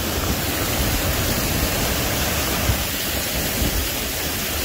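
Small waterfall cascading over rocks: a steady rush of water, with an uneven low rumble underneath.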